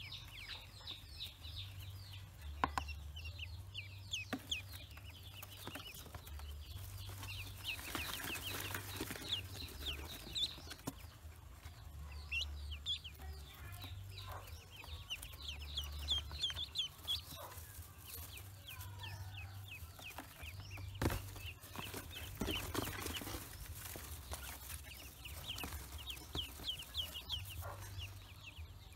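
Newly hatched ducklings peeping: quick runs of short, high, downward chirps that come and go, with a few soft knocks from handling.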